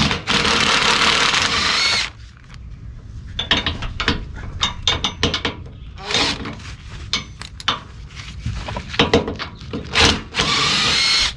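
Makita 18V cordless impact driver hammering to remove 17 mm bumper bolts: a loud run of about two seconds, a stretch of scattered clicks and knocks, then another short run near the end.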